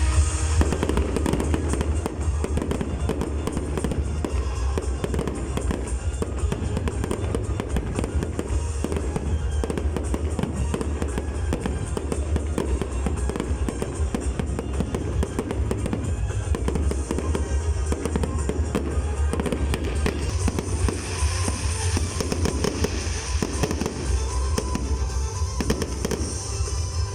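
Fireworks display: a dense, continuous run of bangs and crackles, with music playing underneath.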